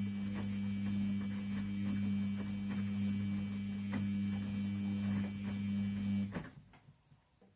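Washing machine running with a steady electric motor hum and light, regular knocks, then cutting off abruptly about six seconds in.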